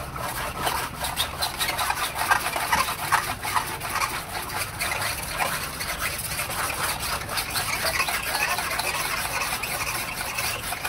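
A razor blade scraping down cured Zpoxy resin on a fiberglass-cloth-covered model airplane fuselage, in quick, rapid strokes that shave the resin smooth.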